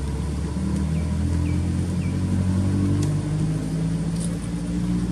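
An engine running steadily, its low hum drifting slightly in pitch, with short high chirps repeating about every half second over it.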